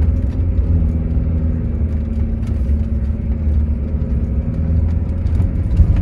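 VW T3 Syncro van driving slowly over beach sand, heard from inside the cab: the engine runs at a steady hum over a heavy low rumble. A few short knocks and rattles come through, the sharpest near the end.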